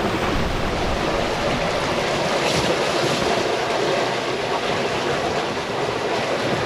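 Sea water rushing and churning past the stern of a sailboat under way, with wind on the microphone: a steady wash of noise.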